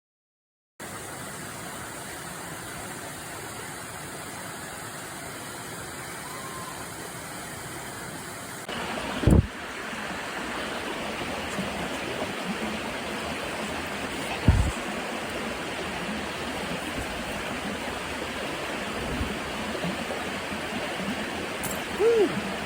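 Steady rush of flowing water. It starts after a moment of silence and grows louder at a cut about nine seconds in. Two brief low thumps come about five seconds apart.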